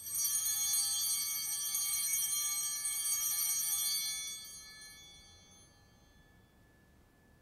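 Altar bells ringing at the elevation of the consecrated host, starting suddenly, ringing on for about four seconds and then fading away.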